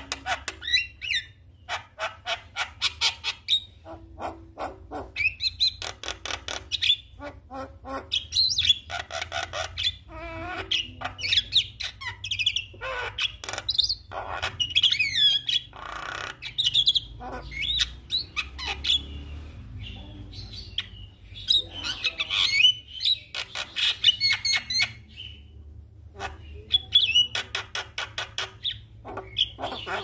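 Javan myna singing vigorously: long phrases of rapid clicking rattles mixed with squeaky whistles and squawks, broken by short pauses.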